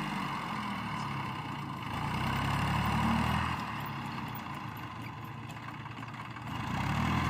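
Tractor's diesel engine running steadily while it pulls a rotary tiller through the soil, swelling louder about two seconds in and easing off again after a second or so.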